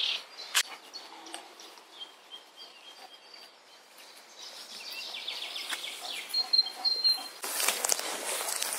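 Small birds chirping, with a quick high trill in the middle. Near the end, rustling and footsteps through tall grass grow louder.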